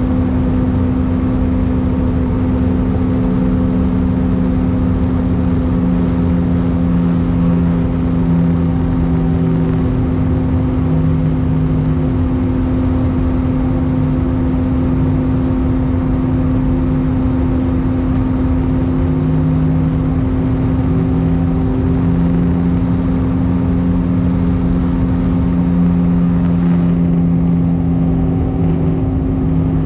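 Airbus A319 cabin noise at a window seat over the wing during descent: a steady rush of airflow and jet engine drone, with a constant low hum and a second low hum that wavers in and out. The higher hiss eases slightly near the end.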